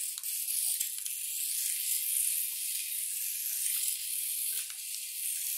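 Tiny 1:64-scale RC car's motor and small gears whirring as it drives across a tile floor, a steady high hiss with a few faint ticks.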